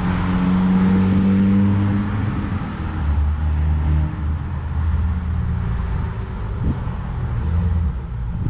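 A loud car's engine and exhaust rumbling as it goes by. The engine note shifts up and down, with a smoother rise early on that gives way to lower, stepped pulses of throttle.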